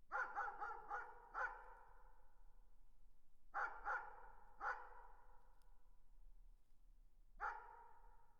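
A dog barking in the distance: a quick run of five barks, then three more about three and a half seconds in, and a single bark near the end. Each bark trails off in a lingering echo.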